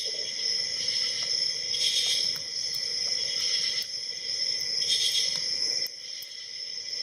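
Crickets trilling steadily, with a few faint ticks from a hook pick working the pins of a padlock.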